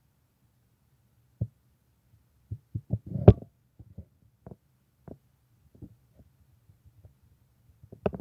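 Handling noise from a hand-held camera: scattered knocks and bumps on the microphone, the loudest about three seconds in, over a faint low hum.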